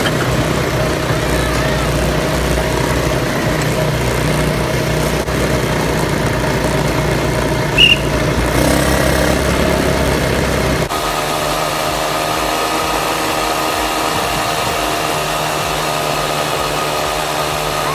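A vehicle engine running steadily. About eleven seconds in it cuts abruptly to a different steady engine hum.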